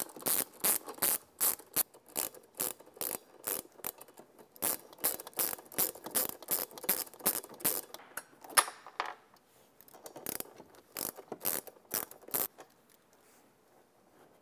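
Ratchet socket wrench clicking in quick, even strokes, about three or four clicks a second, as the nuts on the motor phase wire terminals of a golf cart's motor controller are loosened. The clicking breaks off briefly about nine seconds in and stops near the end.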